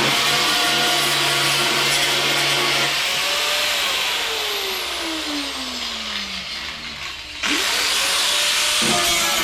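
Electric angle grinder working the welds on a car's steel rear body panel. About three seconds in it is let off and winds down, its whine falling for several seconds. It is then started again and spins back up at once, about seven and a half seconds in.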